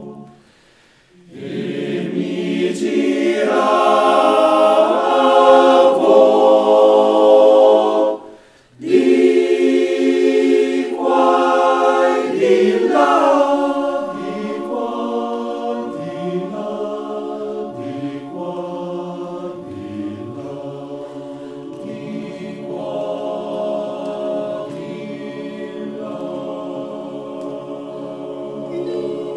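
Male choir singing a traditional alpine mountain song a cappella in close harmony. After a short pause near the start the voices swell to a loud passage, break off briefly about eight seconds in, come back loud, then sing more softly from about the middle on.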